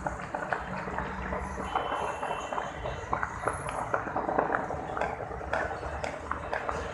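New Year fireworks and firecrackers going off, with many sharp pops and cracks at irregular intervals, several a second, over a steady low rumble.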